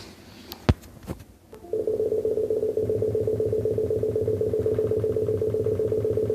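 A couple of sharp clicks, then a computer's weird beeping sets in about a second and a half in: a steady, rapidly pulsing electronic tone that keeps going. The owner hears it every time he does anything with the mouse.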